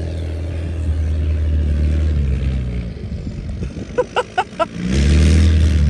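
Straight-piped 12-valve Cummins inline-six diesel in a school bus, running steadily with a deep exhaust note as the bus drives across the field. It eases off after about two seconds, then swells back up loud near the end.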